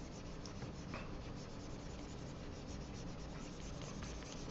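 Faint scratching and rubbing of a pen stylus on a graphics tablet, scribbling quick strokes of colour.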